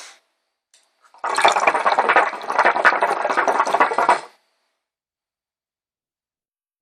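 Hookah water bubbling in the base as a drag is drawn through the hose, starting about a second in and lasting about three seconds.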